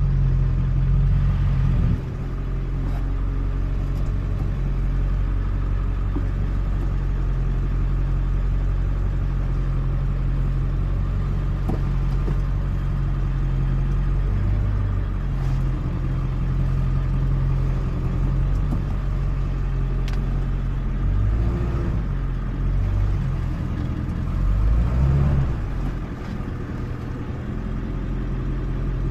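Engine of the vehicle towing a dump trailer, running at low speed while the rig is eased into a driveway. It is a steady low hum whose note shifts a few times, most of all about three-quarters of the way through.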